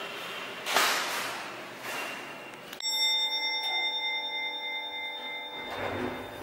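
Hotel passenger lift in use: about three seconds in, a steady hum of several held tones sets in suddenly while the car travels with its doors shut, and it stops again after about three seconds. Near the end the stainless steel doors slide open.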